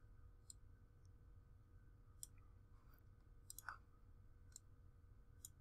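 Faint computer mouse clicks, about six spread irregularly, two in quick succession about two-thirds of the way in, over a low steady room hum.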